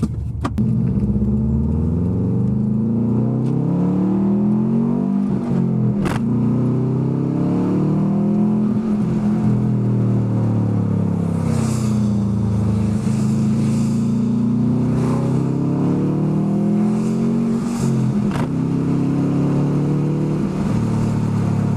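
2003 Subaru WRX's turbocharged flat-four engine accelerating hard through the gears; the revs climb and fall several times. It pulls cleanly, its cylinder 1 misfire cured by a new ignition coil pack.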